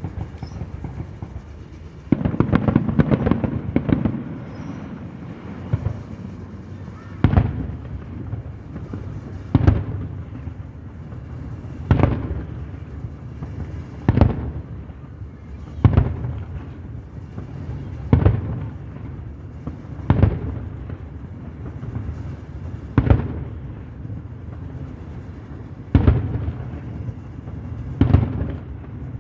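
Aerial fireworks shells bursting: a dense crackling barrage about two seconds in, then single booms roughly every two seconds.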